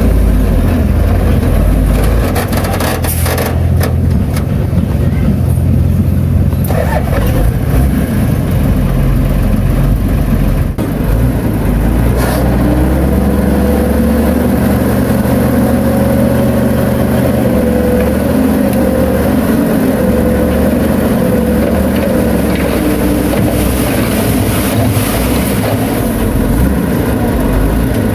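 Heavy diesel earthmoving machinery running, a deep steady rumble; from about halfway a wavering high whine joins in.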